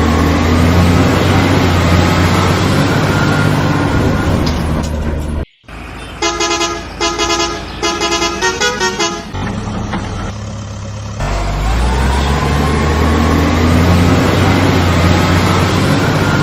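Heavy truck engine sound effect running with its pitch slowly rising, cutting off suddenly about five seconds in. Then a truck horn honks, three longer toots followed by several quick ones, before the engine runs again from about eleven seconds.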